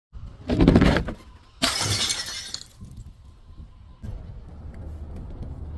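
A heavy crunching impact, then about a second later a glass bottle shattering, with a bright burst of breaking and tinkling glass that dies away within about a second.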